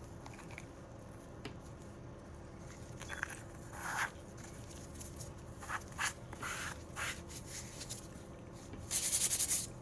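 Light handling noises: scattered scrapes and taps from a small plastic jar of acrylic powder being handled and closed, then a dense scratchy rustle near the end.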